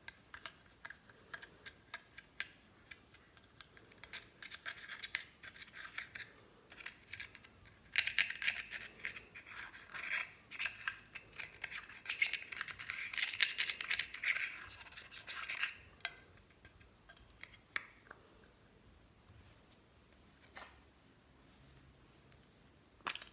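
A thin tool scraping and crumbling pressed powder highlighter out of its compact pan, a dry, close-up rasping scratch that grows busiest in the middle and then thins out. A single sharp click near the end.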